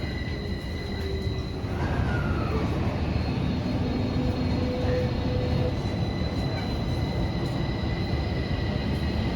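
Interior running noise of a Tokyo Metro 05 series subway train: steady wheel-and-rail rumble with the whine of its Toshiba IGBT-VVVF inverter and permanent-magnet synchronous traction motors. A tone slides down in pitch about two seconds in.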